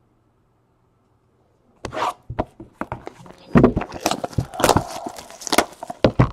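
Trading-card pack wrappers being torn open and the cards handled: a quick run of crinkling rips and sharp clicks that starts about two seconds in, after near silence.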